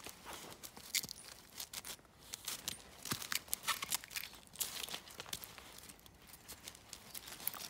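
Finnish Lapphund pawing and rubbing its face on a frozen puddle, with thin ice and dry leaves crackling and crunching in irregular sharp snaps and scrapes.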